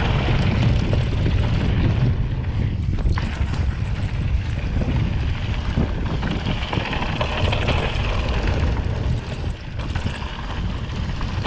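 Specialized Rockhopper 29 mountain bike descending a dirt trail: a steady rumble of wind on the microphone, with tyre noise and the bike rattling over bumps.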